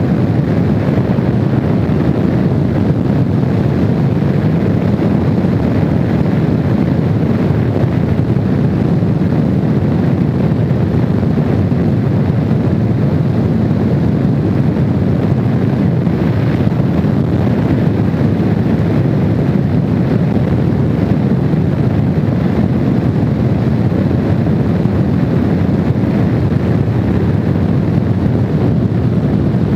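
Honda VFR750 motorcycle cruising at a steady speed, its V4 engine running under a loud, unbroken rush of wind on the microphone.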